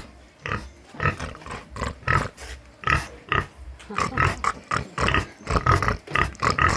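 A large pig grunting over and over in short grunts, about two or three a second, coming faster in the second half.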